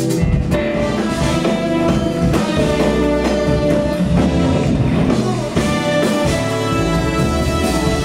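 Jazz-fusion band playing: drum kit, electric bass and keyboards together.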